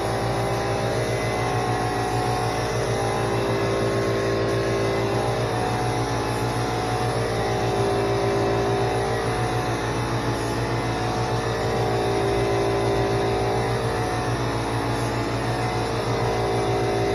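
Small 21-gallon air compressor running steadily with a constant hum, under the hiss of air from an LVLP gravity-feed spray gun spraying paint.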